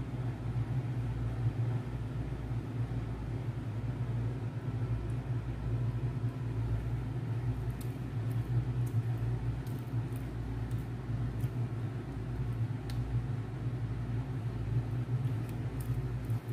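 A steady low hum throughout, from a background fan or appliance. In the second half come a few faint light clicks as a spoon scrapes thick batter out of a glass bowl into a metal cake pan.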